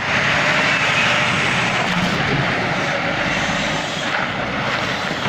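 Heavy diesel semi truck towing a flatbed trailer drives past, its engine running with a loud, steady rush and low rumble that eases off slightly as it pulls away.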